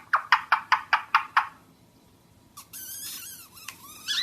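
Pet parrot calling: a quick run of about eight short, sharp calls at roughly five a second, then after a pause of about a second a scratchy, high chattering call.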